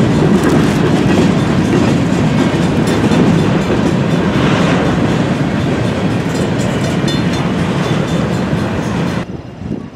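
Norfolk Southern covered hopper cars of a freight train rolling past close by: a steady rumble and clatter of steel wheels on the rails. The sound drops away abruptly about nine seconds in.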